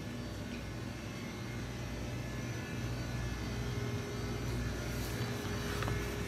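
Steady low hum and hiss of a shop's background noise, with no speech.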